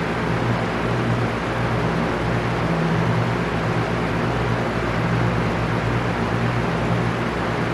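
Electric fan running steadily: an even rush of moving air over a low, constant motor hum.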